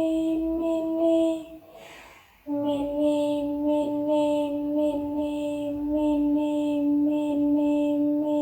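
A high voice chants "mini mini" over and over on one held note, in an even rhythm. It breaks off for about a second after the first second and a half, then carries on at a slightly lower pitch.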